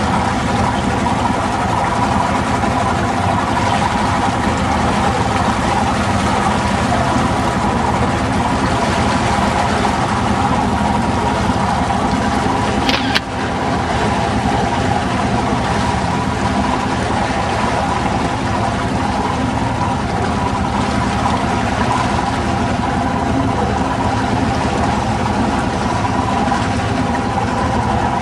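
Boat engine running steadily, a constant drone with a low hum, with a short click about halfway through.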